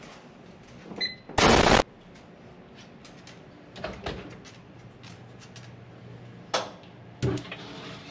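Kitchen handling sounds as an oven door is pulled open: a few knocks and clicks in the second half. Earlier, a brief, very loud rush of noise, the loudest thing here, about one and a half seconds in.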